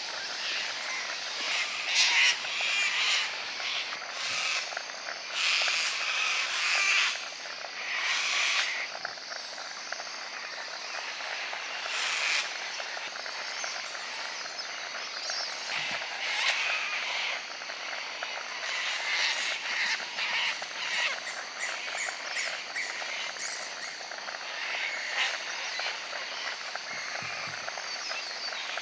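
Sulphur-crested cockatoos calling: a series of harsh, raucous screeches over a steady noisy background, with the loudest screeches in the first third.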